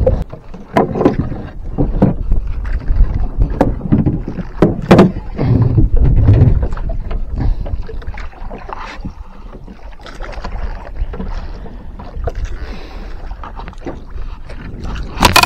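A run of knocks and bumps on a small wooden boat's plank deck, then a steady wash of wind and sea with a few lighter knocks.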